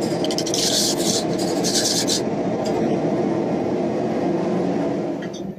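Stiff wire brush scrubbing scale off red-hot steel on the anvil face in quick rasping strokes for about the first two seconds, over the steady rushing roar of a propane forge burner that drops away near the end.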